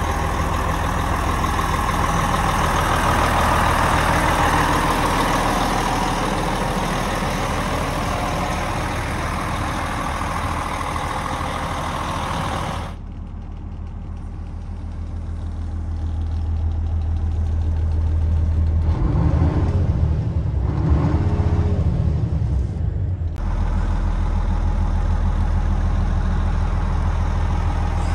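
Foden Alpha 3000 tractor unit's diesel engine idling steadily, heard beside the rear wheels. About halfway through it turns duller, heard from inside the cab.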